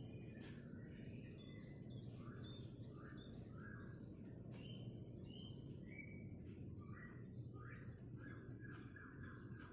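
Sooty-headed bulbul giving a string of short whistled and chirping notes, faint, over a steady low hum.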